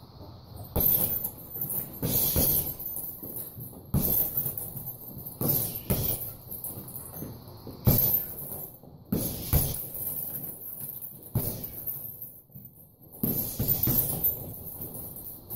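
Gloved punches thudding into a hanging heavy bag at irregular intervals, each hit setting the bag's chain jingling.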